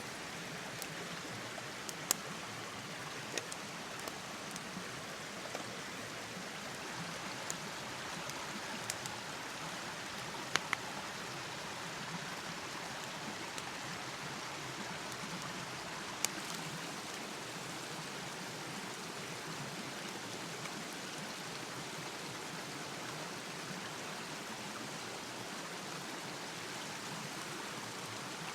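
Steady rain and rushing stream water, with a few scattered sharp ticks in the first half.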